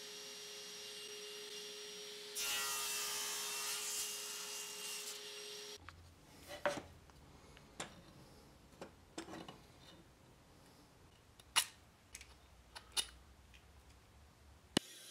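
Table saw running with a steady hum, then cutting into an upright piece of Brazilian cherry for about three seconds from about two seconds in. The saw sound cuts off abruptly, and a scattering of sharp knocks and taps follows, as the slotted hardwood piece is handled.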